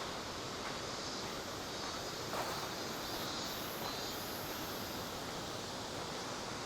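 Steady rush of flowing river water, with cicadas buzzing high above it in swelling and fading waves, and a few soft footsteps.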